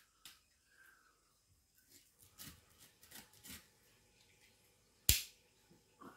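Utility knife blade cutting through a small shark's tough, leathery skin: short scratchy strokes, with one loud sharp click about five seconds in.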